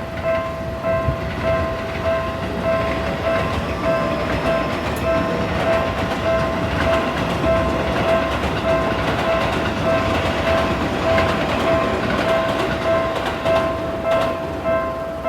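Seibu-style railway level-crossing warning bell dinging at a steady rapid rate, while a train passes over the crossing with a rumble and wheel clatter that swells through the middle.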